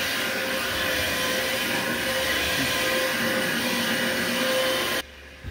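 Electric carpet-scrubbing machine running steadily, a motor hum with a high whine over it, that cuts off suddenly about five seconds in.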